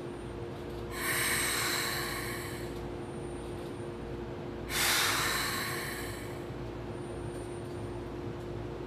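Keikyu New 1000 series train standing with its equipment humming steadily, broken twice by a sharp hiss of compressed air from the pneumatic system, about a second in and again just before the middle, each fading over a second or two.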